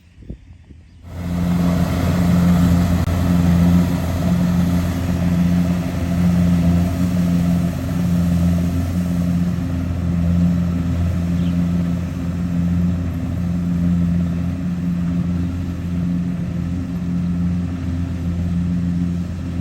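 Diesel engine of a rice combine harvester running steadily under load, with an even low pulsing throb. It cuts in abruptly about a second in.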